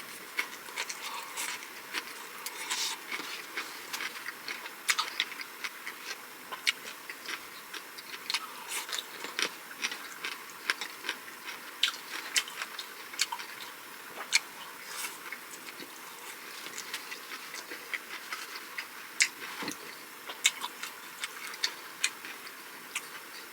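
Close-miked eating sounds: chewing and mouth smacks with irregular sharp clicks, several a second, as pan-fried jeon and seasoned namul side dishes are eaten.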